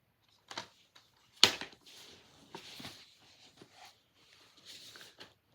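Plastic DVD cases being handled: a few short clicks and knocks with light rustling between them, the loudest a sharp click about a second and a half in.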